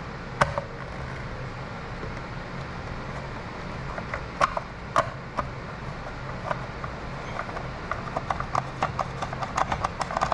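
Scattered clicks and knocks of a trolling motor's plastic control-head housing and hand tools being handled as the unscrewed cover is taken off. The knocks come thicker near the end, over a steady low hum.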